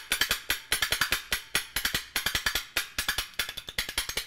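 Handles of two large restaurant spoons clashing together in quick, irregular strikes, about seven a second, as a stand-in for a sword fight: a clatter of sharp metal hits, each ringing briefly.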